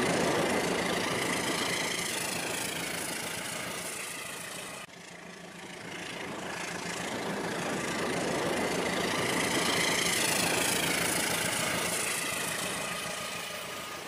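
Toy train locomotives running on sectional track, a steady mechanical rumble and whir of motor and wheels that swells as a train passes close and fades as it moves away. It breaks off abruptly about five seconds in and starts again.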